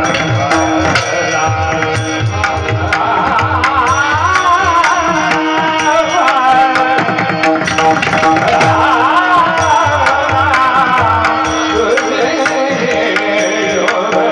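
Marathi kirtan music: a male voice sings long, wavering, ornamented phrases over a steady held drone note, with a hand drum keeping an even rhythm.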